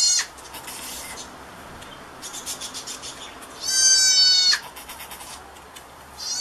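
Newborn goat kid bleating: one high-pitched, nearly level call of about a second in the middle, with the tail of another call right at the start and the next call beginning at the very end.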